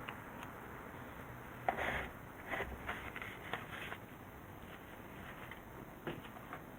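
A few scattered light clicks and knocks, the sharpest about two seconds in, with a cluster of lighter ones after it and another near the end.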